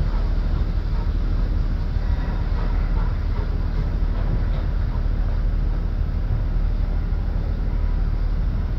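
NSW C38-class steam locomotive 3801 moving slowly away along the platform: a steady low rumble with no distinct exhaust beats.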